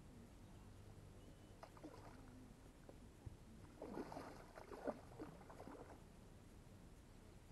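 Faint splashing of a hooked trout thrashing at the water's surface while it is played on a fly rod. The splashes come in short bursts about two seconds in, then more strongly from about four to six seconds in.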